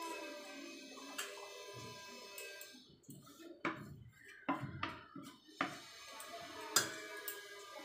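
Wooden spatula tapping and scraping food off a plastic bowl's rim into a pressure cooker: a handful of sharp knocks between about three and a half and seven seconds in, over faint background music.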